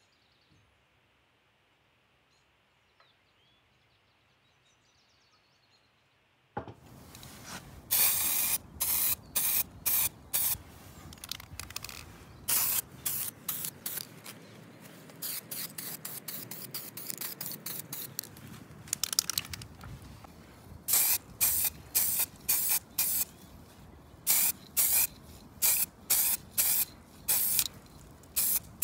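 Spray paint hissing out in many short bursts of about a second or less, coming in quick succession after a quiet stretch at the start: the bank's metal parts being spray-painted.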